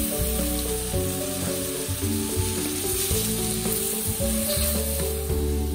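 Water hitting a hot wok of fried ground peanut-and-spice paste for peanut sauce, sizzling as it boils off into steam while a spatula stirs it. Background music with a stepped melody plays underneath.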